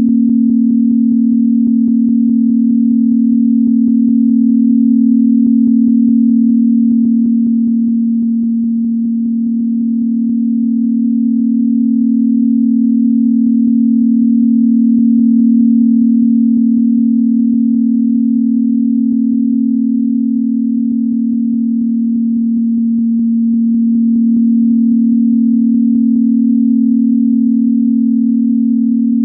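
A synthesized 'healing frequency' tone: one low, steady, pure electronic pitch held throughout, its loudness slowly easing and swelling.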